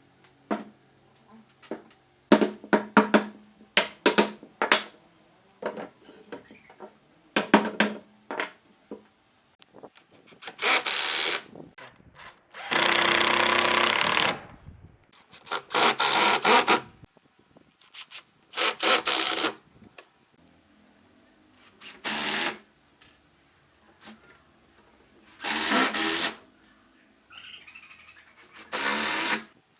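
Woodworking in a shop: a run of sharp knocks and taps, then a power tool running in short bursts of about a second each, seven times, one burst lasting about two seconds.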